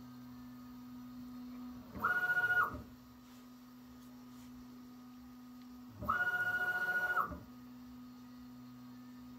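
Prusa XL 3D printer running, its stepper motors holding a steady low hum, twice broken by a loud whine of a fast travel move of the print head across the gantry, the first about two seconds in and brief, the second about six seconds in and longer.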